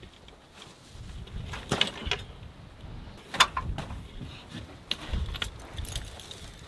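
Wind buffeting the microphone with a low rumble, broken by a handful of scattered sharp clicks and knocks, the loudest about three and a half seconds in.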